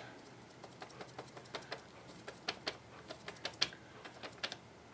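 Faint, irregular light clicks and taps of a small paintbrush dabbing paint onto a sheet of paper.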